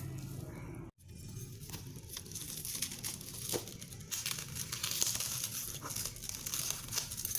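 Plastic packaging being crinkled and torn open by hand, a dense crackling that grows louder after a brief break about a second in.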